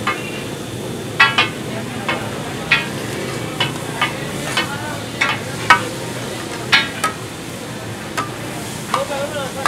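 Boneless chicken sizzling in oil on a large flat tawa griddle, under steady frying hiss. A metal spatula strikes and scrapes the griddle in sharp, ringing clinks at irregular intervals, about once every half second to a second.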